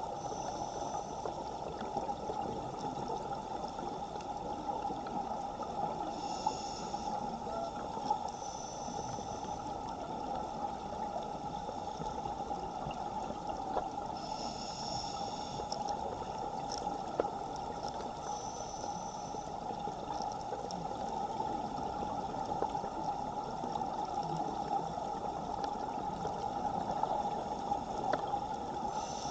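Underwater ambience in a strong current: a steady rush of moving water on the camera housing. A scuba diver's regulator breathing cuts in every several seconds as short bursts of high hiss and whistle.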